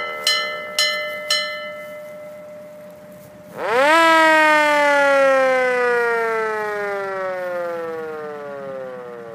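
Seagrave fire truck's mechanical siren winding down as its brass bell is struck three times in quick succession. About three and a half seconds in, the siren spins up sharply to a loud wail, then winds down in a long, slowly falling tone.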